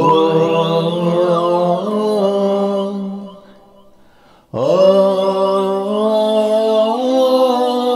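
A man's voice singing two long held notes through a vocal effects processor, with added harmony voices, delay, and a phaser sweeping slowly up and down over the sound. The notes are separated by a short pause about halfway through.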